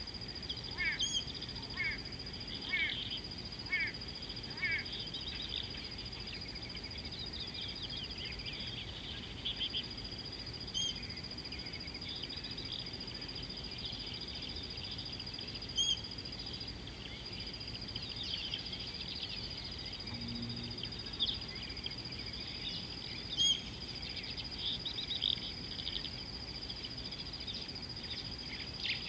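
Wild birds chirping and calling in the bush, with a run of six short descending notes in the first five seconds and scattered chirps after. Under them runs a steady high-pitched whine that breaks off now and then.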